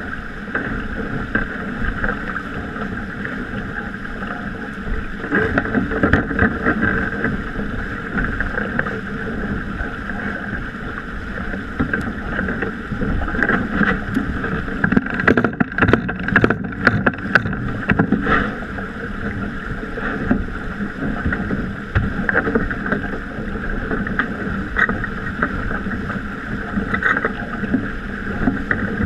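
Water rushing and splashing along the hull of a Mini 6.50 racing sailboat sailing heeled at speed, with wind buffeting the microphone. A cluster of sharp knocks and slaps comes about halfway through.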